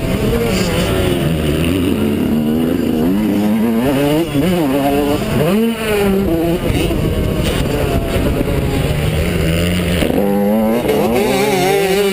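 Yamaha YZ125 two-stroke motocross engine revving hard while racing. Its pitch climbs and drops again and again as the throttle is worked, with short throttle cuts about four and six seconds in.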